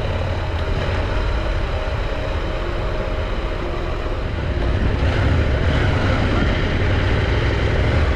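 Adventure motorcycle engine running under way on a dirt track, heard from the onboard camera with wind rushing over the microphone; it gets louder about five seconds in.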